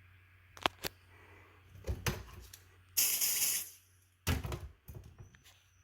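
A hiss lasting just under a second from an aerosol can of test smoke sprayed at a smoke detector to set it off. A few sharp clicks come before it, and a knock of handling noise follows.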